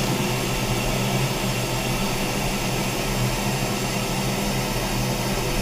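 Disco DAD 321 automatic dicing saw running with its spindle spinning during the blade measurement setup: a steady hiss with a low hum underneath.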